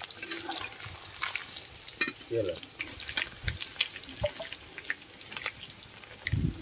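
Battered chicken pieces sizzling as they deep-fry in oil in a steel wok. Many short clicks and scrapes come from a metal spatula working the pieces against the wok.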